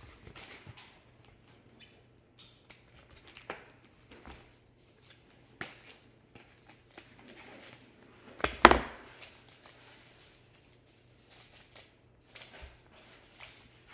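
Plastic cling wrap being pulled, torn and crinkled by hand while wrapping a homemade squishy, in scattered short crackles, with one much louder sharp crackle about eight and a half seconds in.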